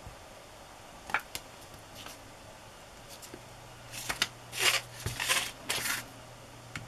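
Handling noise from clear-stamp stamping on kraft paper: a few light clicks of the acrylic stamp block, then several brief rustles of the paper strip about four to six seconds in.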